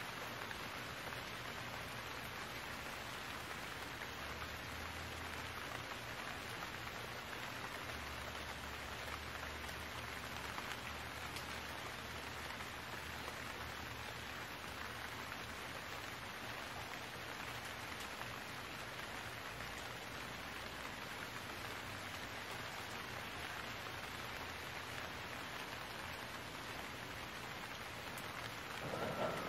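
Steady rain falling, an even hiss throughout, with a faint low engine hum beneath it. Right at the end a louder noise with a steady whine comes in.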